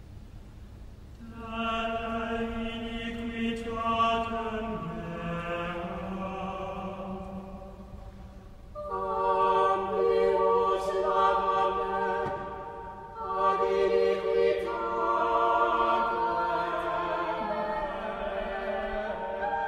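Slow, meditative closing music of long held choir-like vocal tones. It swells in about a second in, again around nine seconds and again around thirteen seconds.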